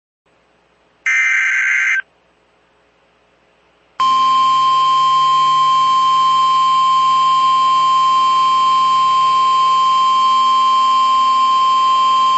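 NOAA Weather Radio emergency alert: a one-second burst of EAS (SAME) header data tones about a second in, then about four seconds in the loud, steady single-pitch 1050 Hz warning alarm tone, which signals that a warning message follows.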